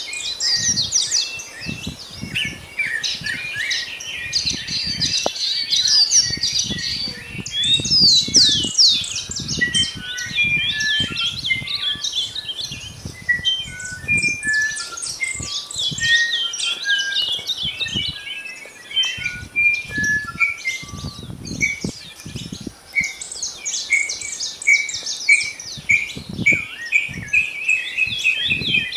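Dawn chorus of several birds singing at once, with dense overlapping chirps and trills, and a run of short repeated whistled notes in the second half. Low rumbling noise on the microphone underneath.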